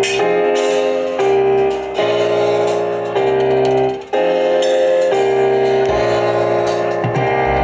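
A live jazz band playing, led by held keyboard chords that change about once a second, with a brief drop in level about four seconds in.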